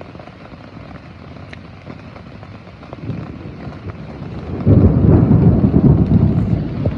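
Thunder rumbling low, then swelling sharply into a loud, sustained peal about two-thirds of the way in.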